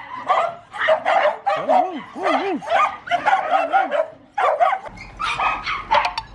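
Several kooikerhondje dogs in kennel runs barking continuously, several barks a second, with a few high rising-and-falling whines among the barks.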